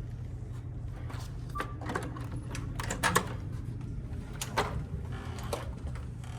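A handful of sharp clicks and knocks, the loudest about three seconds in, over a steady low hum.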